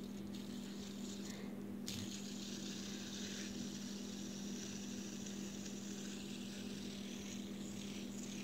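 Fidget spinner spinning, a steady low whirring hum with a hiss that grows louder about two seconds in.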